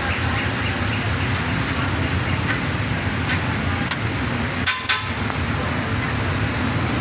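Steady street traffic noise. Just under five seconds in come two sharp knocks with a short metallic ring: an egg cracked against the rim of a steel bowl.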